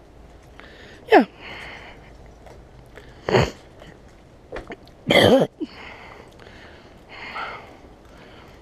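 A man breathing audibly close to the microphone, with two short, sharp, louder sounds around the middle.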